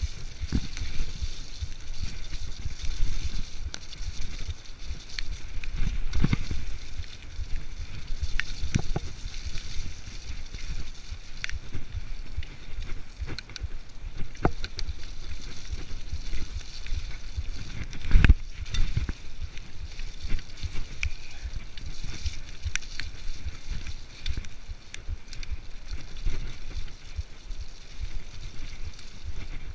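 Kona full-suspension mountain bike riding fast down a dirt singletrack: a constant rumble of wind on the microphone and tyres on the trail, with frequent knocks and rattles from the bike going over bumps. The loudest is a sharp jolt about 18 seconds in.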